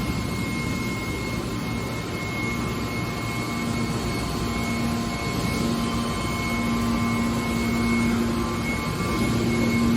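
Hydraulic scrap-aluminum baling press running: a steady machine drone with a thin high whine and a low hum that grows stronger from about four seconds in.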